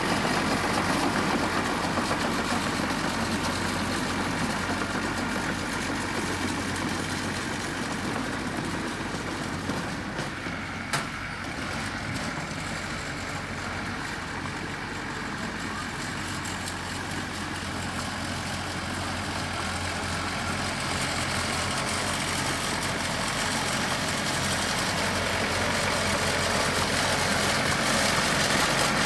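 Diesel engine of heavy earthmoving machinery running steadily. It fades a little through the middle and grows louder again toward the end, with a single sharp click about eleven seconds in.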